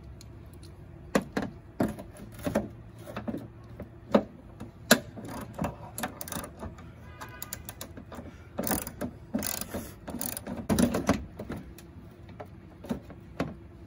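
Hand ratchet with a 10 mm socket on an extension clicking in short, uneven strokes as a long headlight-mounting bolt is backed out, with a few louder knocks of the tool against metal.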